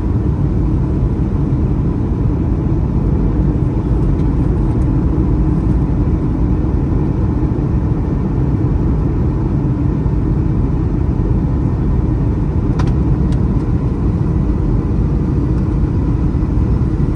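Steady low rumble of cabin noise inside an Airbus A321 airliner on approach: jet engine and rushing airflow, with a faint steady whine. Two light clicks come about half a second apart, some two-thirds of the way through.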